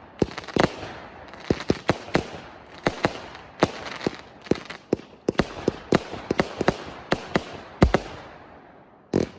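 A 100-shot consumer firework cake of 0.8 to 1.2-inch shots firing: a rapid string of sharp bangs, several a second, with crackling in between. Two heavier, deeper booms come near the end.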